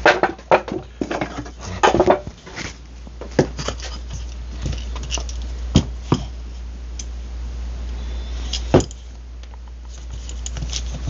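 Scattered knocks, clicks and clatter of parts and tools being handled and set down on a workbench, with a few sharper knocks, over a steady low hum.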